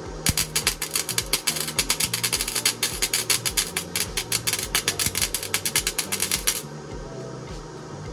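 Flux-core wire-feed welder arc crackling and popping fast and irregularly as it lays a bead on thin 18-gauge steel, stopping abruptly about six and a half seconds in.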